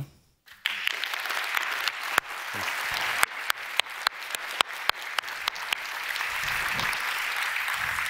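Audience applauding, beginning about half a second in, with a few sharper single claps standing out from the steady clapping.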